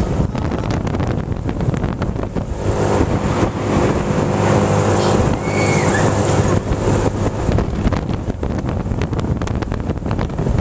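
Wind buffeting the microphone on a Mondial Turbine thrill ride in motion, over the steady hum of its drive and frequent rattling knocks from the ride.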